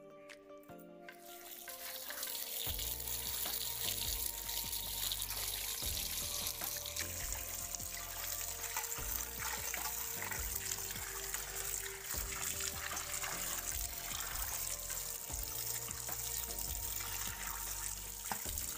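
A stream of running water splashing onto raw fish pieces in a steel colander as they are rinsed, a steady hiss that starts about a second in. Background music plays underneath.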